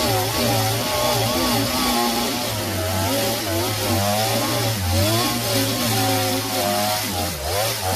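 Gasoline chainsaw running at high throttle with its bar plunged into the end of a log, boring out the log's core. The engine note wavers as the chain bites into the wood, and dips briefly and picks back up near the end.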